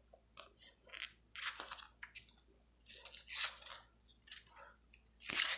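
Pages of a matte-paper CD booklet being turned and handled, making a series of short paper rustles and flicks. The loudest come about a second and a half in, about three and a half seconds in, and near the end.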